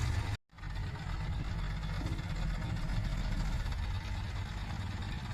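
Backhoe loader's diesel engine running steadily, cut off briefly by a sudden dropout about half a second in.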